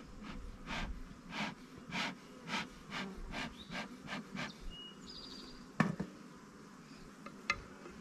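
Honeybees humming at a hive entrance, under a run of about ten breathy puffs of air, roughly two a second, that fade out. A sharp click comes about six seconds in and a smaller one a second and a half later.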